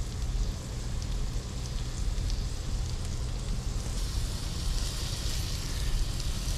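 Pieces of sheepshead fish and an egg omelet sizzling and crackling as they fry in butter in skillets, a little louder in the second half, over a steady low hum.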